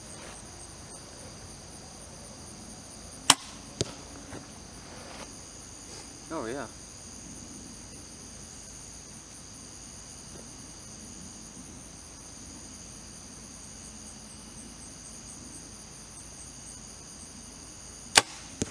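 Compound bow shot twice. Each release is a sharp crack, followed about half a second later by a fainter knock as the arrow hits the 3D target. A steady high-pitched chorus of crickets and other insects runs underneath.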